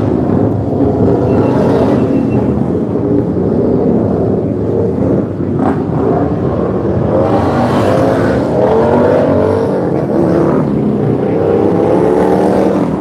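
Several race motorcycles running hard in qualifying, their engines overlapping and rising and falling in pitch as they accelerate and shift. For most of the stretch they are heard from inside a concrete tunnel under the circuit.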